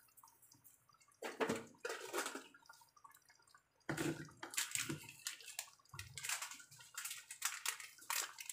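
Arroz valenciana simmering in its pot: the broth bubbles and pops in short, irregular bursts.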